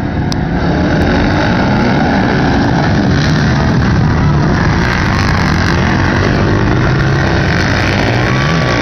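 A pack of 250–400cc quad ATVs racing together on a flat track, their engines making one dense, loud run of engine noise that swells about a second in.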